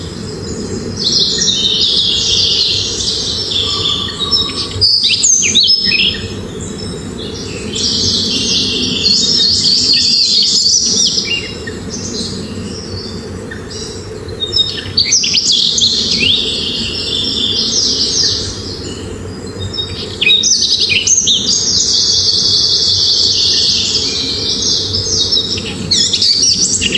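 Gouldian finches chirping and twittering in bursts of several seconds, about four times, with short pauses between. A steady low rumble runs underneath.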